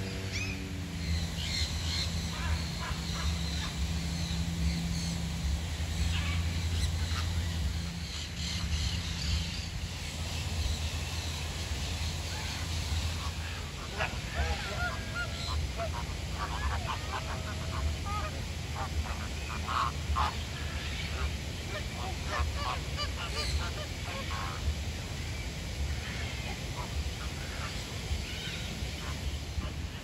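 A flock of flamingos honking and gabbling in goose-like calls, thick from about halfway through and thinning near the end. Before that, a low steady hum with small birds chirping high.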